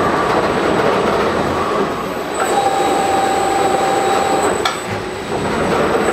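Farbal FM5D film-wrapping machine running: a steady mechanical rumble of its conveyor and drives. A motor whine comes in a little before halfway and cuts off with a click about two-thirds through.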